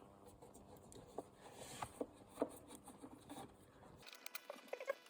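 Faint scraping, rubbing and small clicks of a Phillips screwdriver turning out screws from an APC battery pack's casing, with sharper, brighter clicks near the end.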